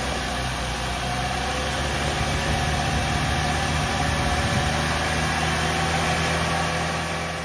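Chevrolet 2.4 L Ecotec four-cylinder gasoline direct-injection engine running steadily at a held, raised speed of about 2000 RPM while Seafoam top engine cleaner is sprayed into its vacuum line to clean carbon off the intake valves.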